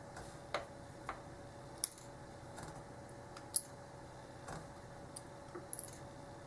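A few faint, scattered sharp clicks of small metal lock parts: pins and springs being taken out of a Schlage padlock's pin chambers and set down, with the loudest clicks near two and three and a half seconds in.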